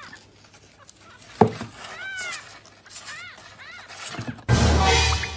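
Newborn kitten mewing: several short, high calls that rise and fall in pitch. There is a sharp knock about a second and a half in, and a loud rough noise for the last second.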